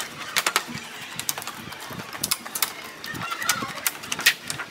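Scissors snipping through thin mylar drum-head film as the excess is trimmed from around the hoop: a run of sharp, irregular snips and crackles of the plastic sheet.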